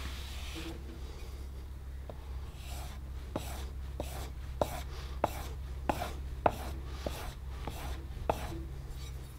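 The iron of a Stanley Bedrock No. 608 plane is honed by hand on a sharpening block, slid back and forth in a steady rhythm. After a couple of seconds of lighter rubbing there are about ten strokes, roughly one every 0.6 s, each a gritty scrape ending in a light knock.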